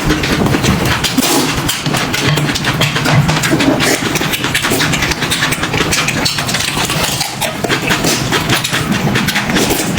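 Loud, close-miked eating: continuous chewing with many quick, irregular crunchy clicks.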